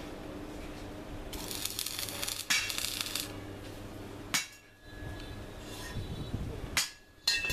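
Stick (arc) welding on steel rebar: the arc crackles and hisses for about two seconds, starting a little over a second in, with a few sharp metallic knocks and clinks around it.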